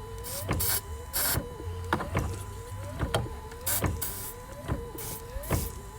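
Ford Transit windshield wiper motor and linkage running, with a whine that rises in pitch on each sweep and a sharp knock a bit under once a second; the linkage has just been greased and has quieted down a lot. Several short hisses of aerosol silicone lubricant being sprayed into the linkage.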